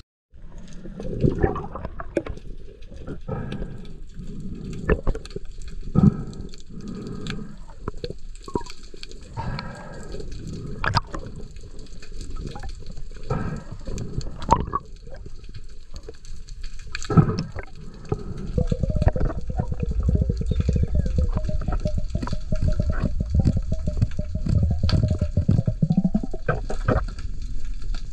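Underwater water noise picked up by a diving camera: irregular knocks and sloshing bursts, turning about two-thirds of the way in into a steady low rumble with a faint hum.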